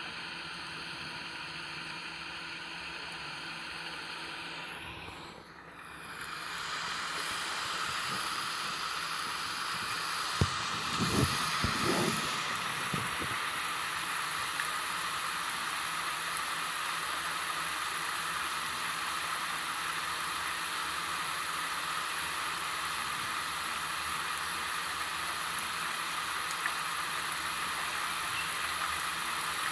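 Steady rain falling. It fades down briefly about five seconds in and swells back up, and a few louder impacts stand out around ten to thirteen seconds in.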